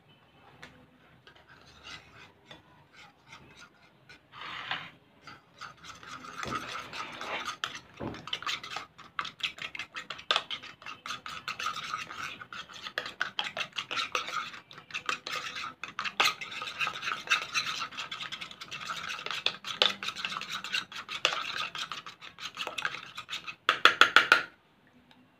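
Metal spoon stirring a thick white glue mixture fast in a bowl, a quick run of scraping and clicking strokes against the bowl's sides that starts a few seconds in, with a short, louder flurry near the end.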